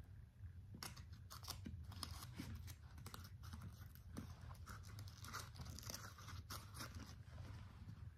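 Quiet, irregular crinkling and crackling of paper craft materials being handled and pressed, starting about a second in and stopping shortly before the end.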